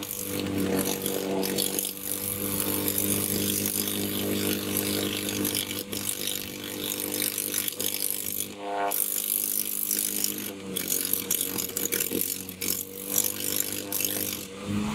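A hot dog pressed against an energized high-voltage line, with the current arcing and burning through it: a steady electrical buzz with crackling, which cuts off near the end when contact is broken.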